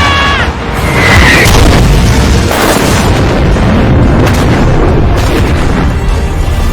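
Anime sound effect of a large explosion: a loud, sustained blast and rumble with music under it. A pitched tone from the previous effect cuts off about half a second in.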